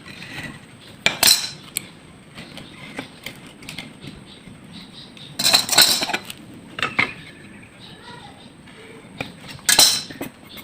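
Hard objects clattering and knocking in a woodshop, with three loud bursts of clatter (about a second in, about halfway, near the end) and lighter taps and clicks between them.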